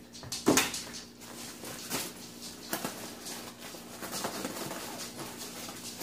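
Canvas backpack being handled and packed: rustling fabric and the contents shifting, with a few light knocks, the sharpest about half a second in.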